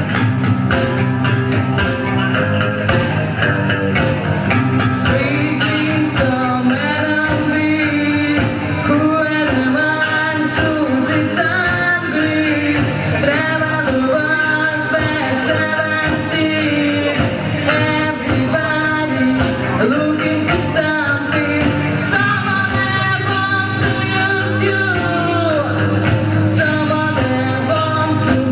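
Live rock band playing with singing over electric guitar, bass and drums, the sound filling a large hall.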